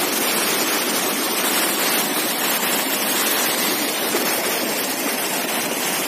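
Steady rush of a stream cascading over rocks at a waterfall, an even hiss of flowing water.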